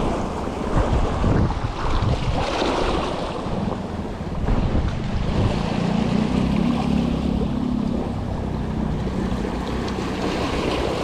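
Small sea waves washing and splashing over rocks at the shoreline, with wind buffeting the microphone; the noise swells and eases as each wave comes in.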